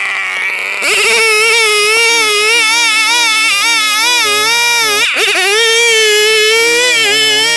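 Background music: a singer holding long, high notes with a steady wavering vibrato, starting about a second in and breaking briefly about five seconds in.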